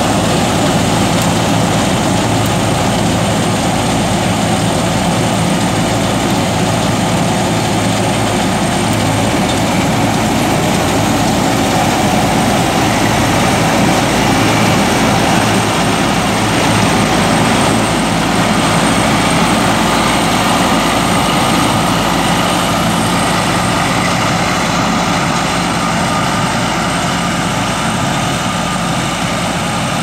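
Mini combine harvester running steadily while it cuts and threshes the standing crop: a constant engine drone over the clatter and rush of its cutting and threshing gear. It grows a little fainter near the end as the machine moves off.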